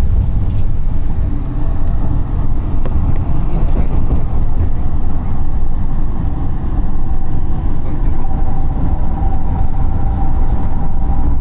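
Road and engine noise inside a Ford passenger van's cabin on the move: a steady, loud low rumble, with a faint steady whine coming in about seven seconds in.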